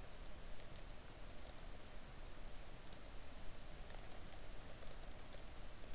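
Computer keyboard typing: faint keystroke clicks at an uneven pace.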